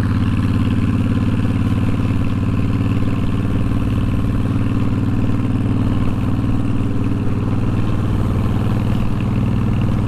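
Honda VTX1300's V-twin engine running at a steady pace while the motorcycle is ridden, with no change in pitch.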